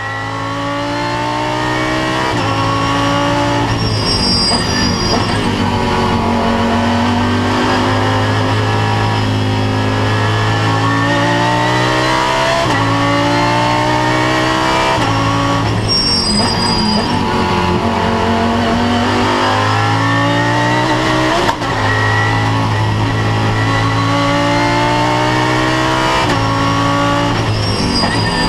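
Lamborghini Huracán GT3's naturally aspirated V10 at racing speed, heard from inside the cockpit. Its pitch climbs through each gear with sharp drops at the upshifts, falls away twice as the car slows for corners, then climbs again.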